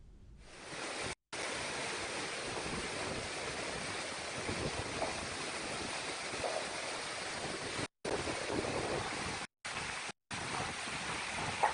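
Storm wind and heavy surf from a cyclone: a steady rushing noise that cuts off abruptly a few times for a split second.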